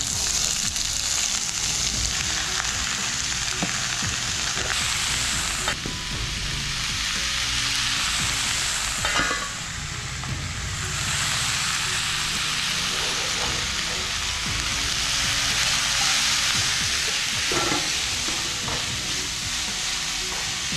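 Sliced red onions sizzling steadily in hot oil in a pan as they start to sauté, with a few brief knocks of a utensil.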